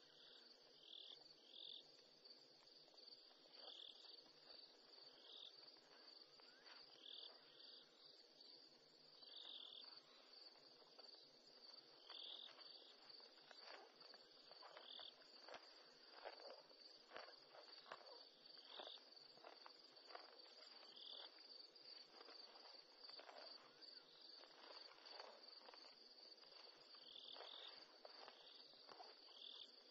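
Faint night insects: crickets trilling in a continuous high ring, with another insect giving short chirps every second or two. Through the middle stretch, a run of soft crunching clicks from a rhinoceros cropping and chewing grass close by.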